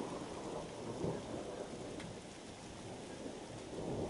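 Thunder rumbling over steady rain, easing in the middle and swelling again near the end, with a few faint raindrop ticks.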